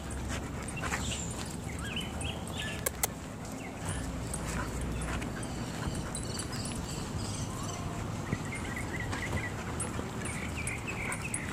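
Dog sounds over a steady low rumble.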